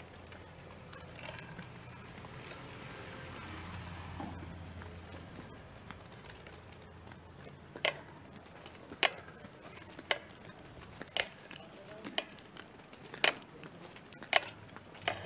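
Footsteps on a pavement while walking, heard as sharp clicks about once a second from about eight seconds in. They follow a low steady hum in the first five seconds.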